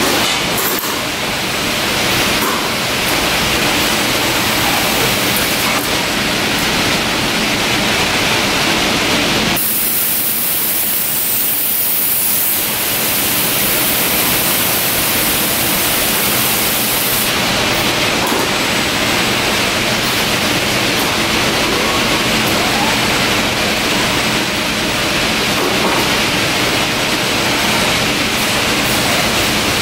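Steady factory-floor machinery noise from a palletizing and stretch-wrapping line, an even hiss-like din with a faint low hum. About ten seconds in it switches abruptly to a thinner, hissier sound for several seconds, then returns.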